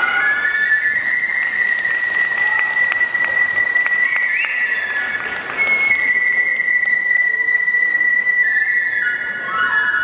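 Kagura bamboo flute (fue) playing long, high held notes, sliding and stepping between a few pitches, and dropping lower near the end.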